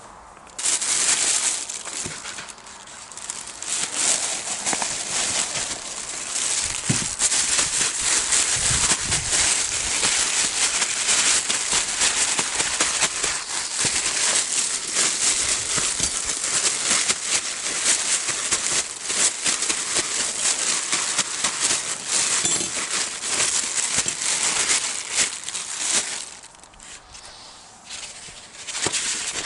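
Plastic bag crinkling and rustling as it is handled and shaken, coating the fish in flour for frying. It goes quieter for a couple of seconds near the end.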